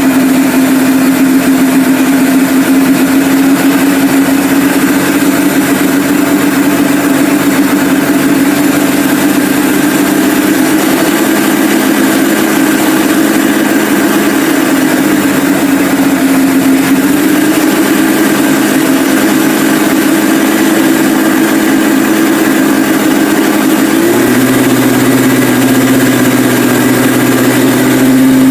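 Kawasaki Z-series motorcycle engine running steadily at a held engine speed. The pitch rises a little partway through, then shifts again with a deeper note appearing near the end.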